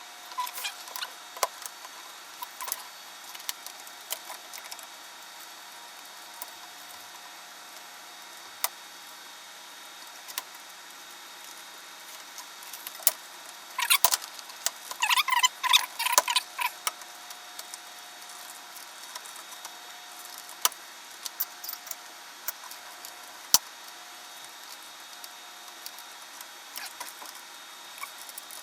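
Small hard parts being handled during reassembly of an electronic instrument: scattered sharp clicks, with a busier stretch of rattling and clicking about halfway through.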